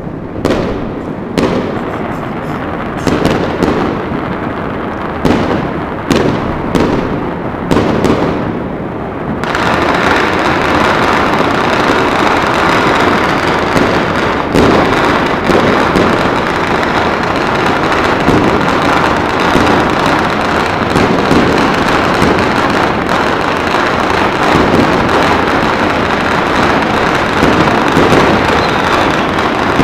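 Fireworks and firecrackers going off across the city: for the first several seconds, separate loud bangs with echoes. About ten seconds in, the sound suddenly becomes a dense, continuous crackling din of many firecrackers at once, with bangs still rising above it.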